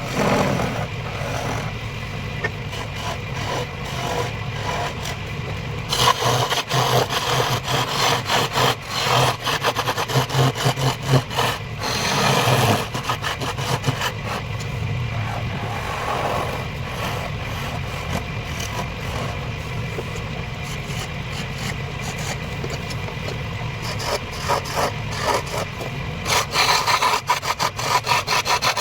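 Wood lathe running, with a turning tool cutting into the spinning wood: a rapid, rough scraping that comes in spells about six seconds in and again near the end, over the steady hum of the machine.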